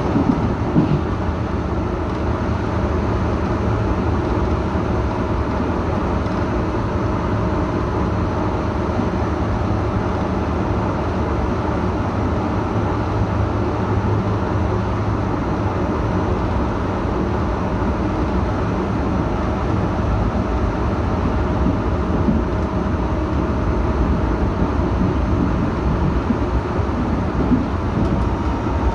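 Berlin U-Bahn HK-series train running steadily, heard from inside at the front of the train: a continuous rumble of wheels on rails with a faint steady whine above it.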